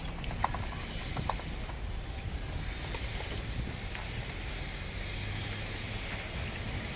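Wheels clacking over rails at a level crossing: a few sharp clacks in the first second and a half over a steady low rumble.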